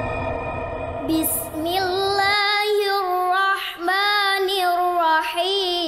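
A young girl's voice chanting a slow, drawn-out melodic line of long wavering notes, coming in about a second and a half in over the fading end of a steady synthesizer music pad.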